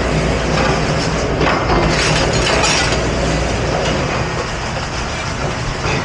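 Water hissing from a commercial pre-rinse sprayer in bursts as kitchen utensils are rinsed, over a steady machinery hum.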